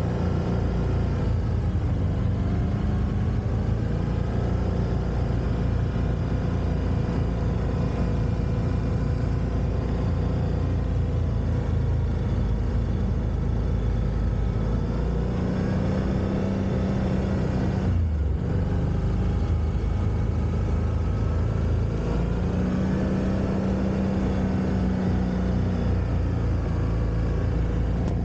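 Quad bike (ATV) engine running continuously under way, its pitch rising and falling with the throttle. The revs drop briefly and pick up again about two-thirds of the way through.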